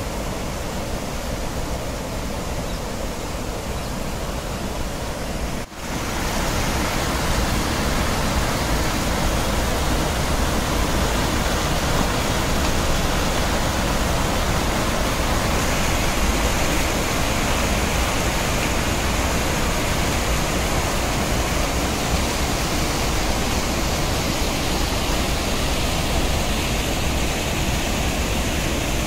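Floodwater rushing steadily over a concrete weir, with a brief cut-out about six seconds in, after which it is a little louder.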